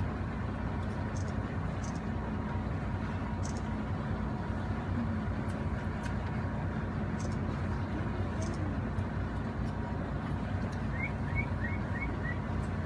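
A boat engine running at a steady hum, over an even wash of noise. A few faint, short high chirps come near the end.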